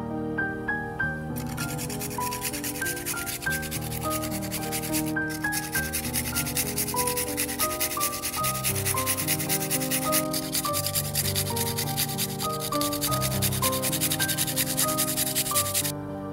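Garlic clove grated on a small metal hand grater in fast, continuous rasping strokes, with two brief breaks and stopping near the end. Soft piano music plays underneath.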